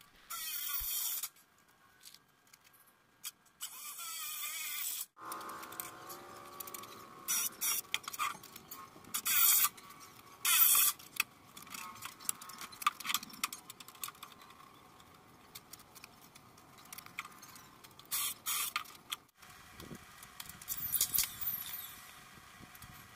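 Cordless drill driving self-tapping deck screws into red oak floor planks. It runs in several short bursts of about a second each, with pauses between.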